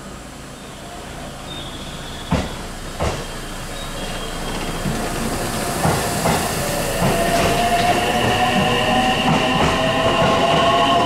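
JR West electric commuter train pulling into the platform, its wheels clacking sharply over rail joints, with a steady whine that grows louder as the carriages roll past.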